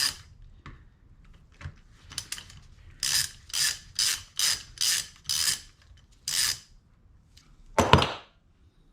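Socket ratchet wrench backing out the bolts that hold the end caps on a Porsche 911 steering rack, with repeated short ratcheting runs about two a second. The bolts were only lightly torqued. A single louder clunk comes near the end.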